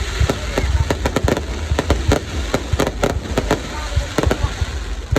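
Aerial fireworks bursting in a rapid, irregular string of sharp bangs, several a second, over a steady low rumble.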